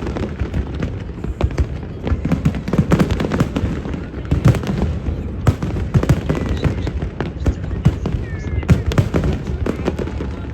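Fireworks display going off continuously: many sharp cracks and deep booms of bursting shells in quick, irregular succession.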